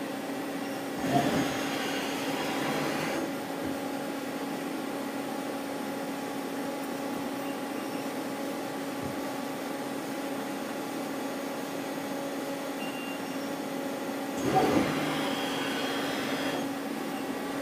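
Mazak CNC lathe running, its main spindle turning an aluminium part while a tap in a floating tap holder cuts a thread in the end face: a steady machine hum with a constant tone. Two louder noisy spells of about two seconds each come about a second in and near the end.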